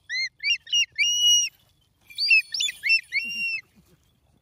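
A captured eagle calling at close range: two series of sharp, clear whistled notes that rise then fall, each series ending in a longer held note.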